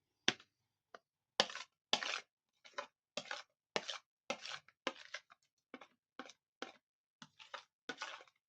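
A quick run of short, sharp knocks and crunches, about two a second, with silence between them.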